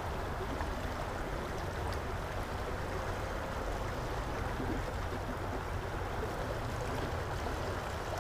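Stream water flowing, a steady, even noise.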